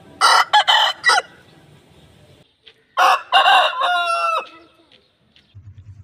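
Aseel roosters crowing twice: a short, broken crow right at the start, then a longer crow about three seconds in that ends in a drawn-out falling note. Shortly before the end a steady low hum with rapid ticking comes in.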